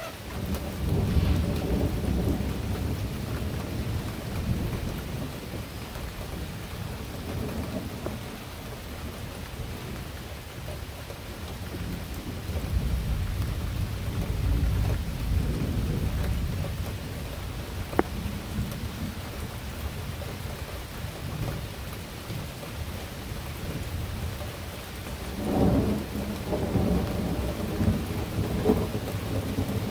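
Thunder rumbling over steady rain: a long roll starting about a second in, another around the middle, and a third near the end. A single sharp click about two-thirds of the way through.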